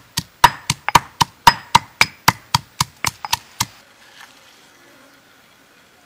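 Stone pestle pounding garlic in a granite mortar: a run of sharp, ringing stone-on-stone knocks at about four a second, stopping about three and a half seconds in.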